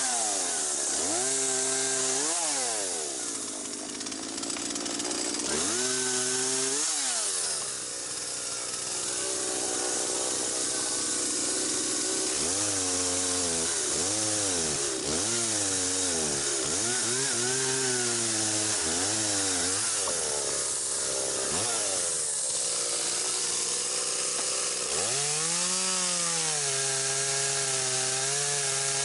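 Petrol chainsaw cutting branches, the engine revving up and sagging in pitch over and over as it bites into the wood, then held steady under load near the end.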